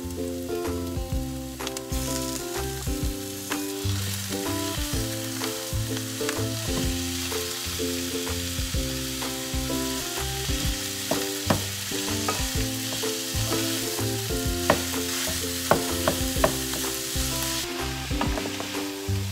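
Diced onion and raw ground beef sizzling in a frying pan while a wooden spatula stirs and breaks up the meat, with sharp taps and scrapes against the pan, more of them in the second half. Quiet background music plays underneath.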